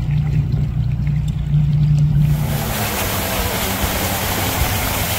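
Outboard motor running slowly at trolling speed with a steady low hum. About two seconds in, this gives way to the loud rushing wash of a boat running fast on the plane, its motor under the rush of water.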